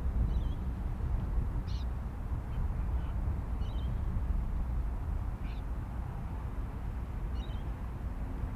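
Wind buffeting the microphone as a steady low rumble, with a handful of short, high bird calls every second or two.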